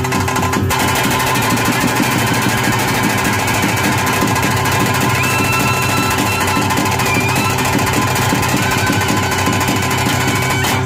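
Bhuta kola ritual music: very fast, dense drumming over a steady drone, with a high pipe melody weaving above it about halfway through.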